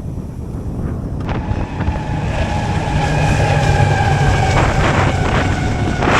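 Strong wind buffeting the microphone of a cyclist riding downhill. It grows louder about a second in, and a steady whining tone rides over it.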